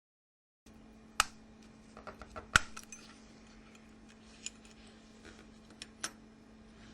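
Sharp clicks and clinks of a Nokia 6100 handset's small plastic and metal parts being handled and prised apart, as the B cover is pulled outwards to unlock the shielding. A few single clicks are spread over several seconds, the loudest about two and a half seconds in, over a faint steady hum.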